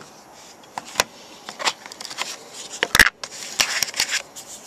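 Zippo lighters and their box being handled: a handful of sharp clicks and knocks, the loudest about three seconds in, with scraping just after.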